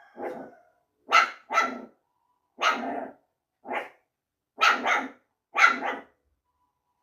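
Small dog barking at its own reflection in a mirror: a string of sharp barks, some in quick pairs, about nine in all, with short pauses between.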